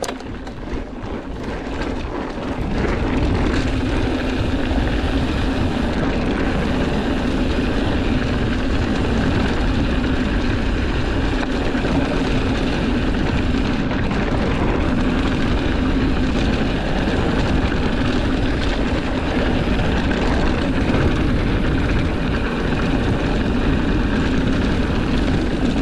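Rush of wind on the camera microphone mixed with tyres rolling over a dirt singletrack as a mountain bike picks up speed. It builds over the first three seconds, then holds steady.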